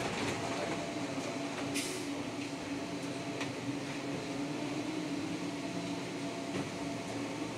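Škoda 32Tr SOR trolleybus heard from inside while driving: a steady electric hum over road and tyre noise, with a short hiss about two seconds in.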